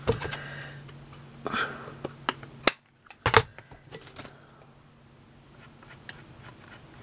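Sharp clicks and light knocks of craft tools and chipboard pieces being handled on a cardboard-covered desk: scissors set down and a hot glue gun picked up. There is a soft rustle about a second and a half in, and a steady low hum that drops out for a moment just before three seconds.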